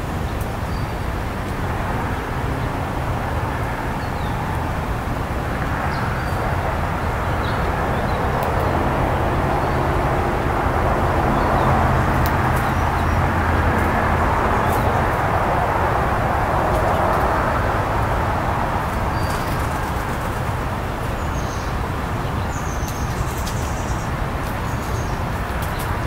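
Steady road traffic noise. A vehicle's engine hum swells and fades through the middle. Faint, short, high bird chirps come now and then.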